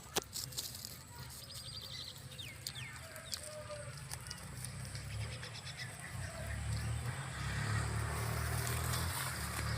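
Outdoor farm ambience: a few clicks and short falling chirps over a low rumble that grows louder about halfway through.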